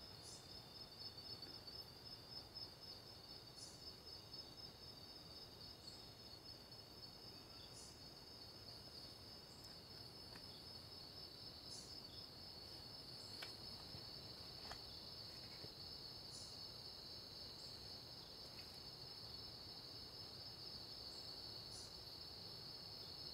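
Faint, steady high trilling of night insects in a forest, with a few brief higher chirps and a couple of faint clicks.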